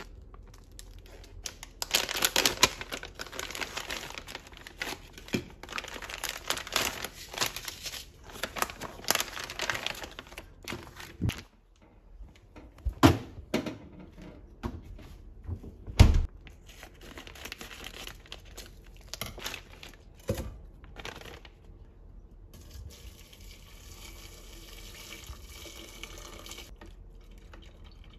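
Crinkling and rustling of plastic food packaging, followed by a few sharp knocks, the loudest about sixteen seconds in. Near the end comes a steady soft hiss of water.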